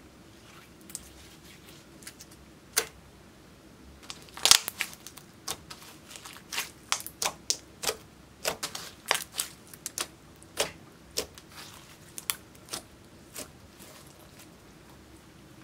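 Glossy slime squeezed and kneaded by hand, giving irregular sticky clicks and pops. A few at first, then coming thick and fast from about four seconds in, with the loudest pop near the start of that run, thinning out near the end.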